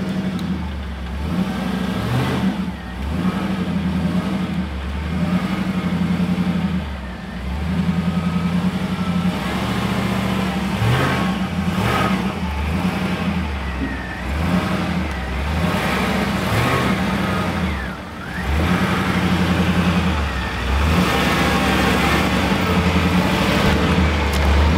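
GMC box truck's engine pulling the truck slowly up a rough dirt trail, the revs rising and easing as the driver works the throttle over the bumps.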